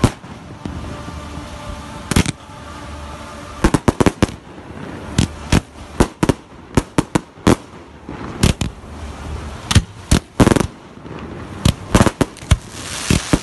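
Aerial firework shells bursting: a single bang about two seconds in, then a rapid, irregular series of sharp bangs, often several a second, with a rising hiss near the end.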